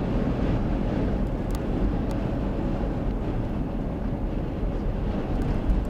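Strong, gusty wind buffeting the microphone: a steady low rumbling roar that swells, with a brief louder gust near the end.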